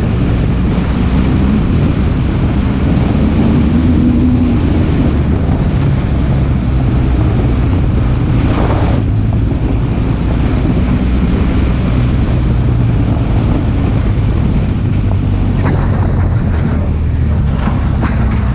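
Vehicle driving on a gravel road: the engine runs low and steady under road and tyre noise, with wind on the microphone. About three seconds in the engine pitch rises briefly, and a few sharp clicks near the end fit stones knocking under the vehicle.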